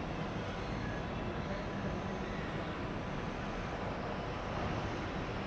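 Steady low rumbling background noise with no distinct events, of the kind heard from traffic or wind at an open-air building front.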